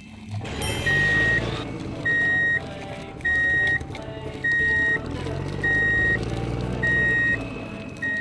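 Truck reversing alarm beeping steadily, about one half-second beep every 1.2 seconds, seven times, over a low engine rumble.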